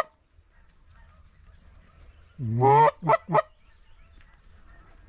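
Canada goose call blown by a hunter: one drawn-out honk rising in pitch, then two short, sharp clucks in quick succession.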